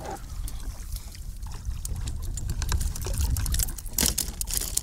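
Water splashing and trickling beside a kayak as a hooked rock bass is brought in, with scattered sharp ticks over a steady low rumble. One louder splash comes about four seconds in.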